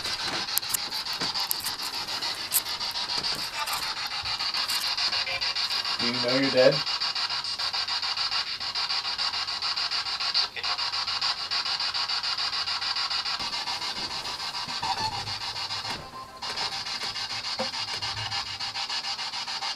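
Spirit box (ghost box) radio sweeping rapidly through stations: a steady hiss of static chopped into quick regular pulses, with a brief fragment of a voice about six seconds in. The static briefly drops out about sixteen seconds in.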